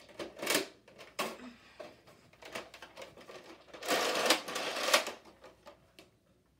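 Rapid mechanical clattering from a Nerf blaster handled close by. Scattered clicks are loudest in a dense burst of about a second a little past the middle.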